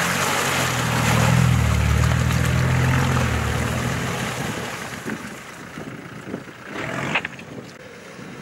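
Land Rover Discovery off-road 4x4 engine running under load as it drives through mud and past, with tyre and mud noise; the engine sound fades away after about four seconds. A few short sharp sounds follow, the loudest about seven seconds in.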